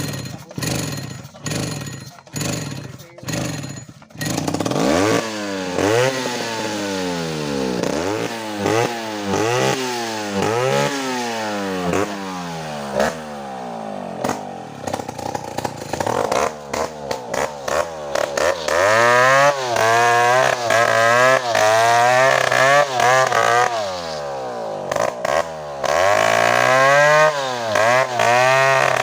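A series of even knocks, about two a second, for the first few seconds. Then a two-stroke chainsaw engine runs, its throttle blipped up and down again and again. From about two-thirds of the way in it is held at high revs, with one short dip.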